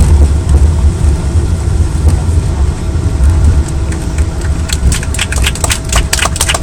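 Loud, steady low rumble inside the cabin of a Boeing 777 landing. About four and a half seconds in, a quick run of rattles and clicks sets in over it.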